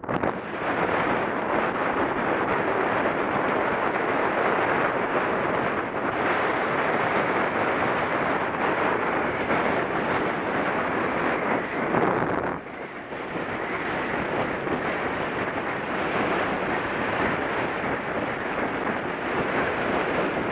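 Steady wind rush over the microphone of a camera riding on a mountain bike at speed, mixed with the rumble of tyres on a gravel road. It eases briefly a little after halfway, then returns.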